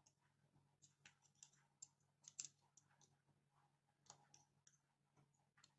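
Faint, scattered small clicks and ticks of a smartphone's circuit board and small plastic and metal parts being handled by hand, with a quicker run of clicks in the middle and another about four seconds in.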